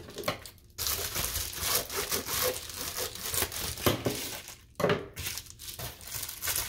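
Plastic bubble mailer being opened: crinkling and tearing of the plastic packaging, with short pauses about half a second in and just before five seconds.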